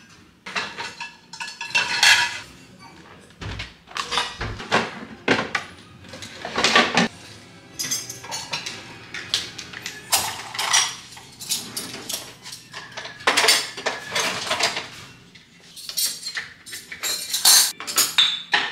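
Dishes being handled at an open dishwasher: glass jars clinking and pots and metal utensils clanking against the wire racks, in an irregular run of clinks and rattles.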